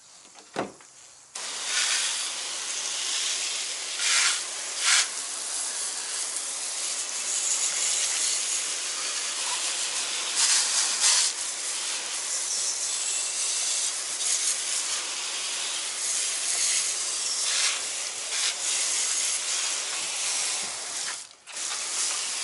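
Garden hose spray nozzle spraying water onto a mountain bike to rinse off the bike cleaner: a steady hiss starting about a second in, after a short click, with a few louder surges as the spray hits the bike and a brief break near the end.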